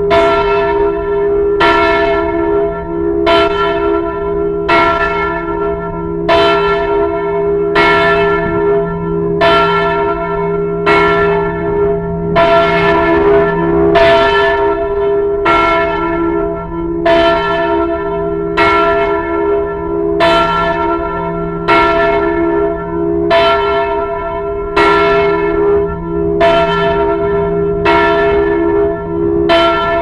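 Temple bell struck steadily, about once every one and a half seconds, each stroke's hum ringing on into the next.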